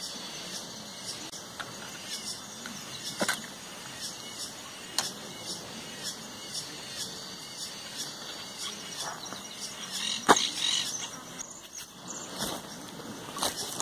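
Steady outdoor hiss on a riverbank, broken by a few sharp clicks and knocks from handling fishing gear; the loudest knock comes about ten seconds in.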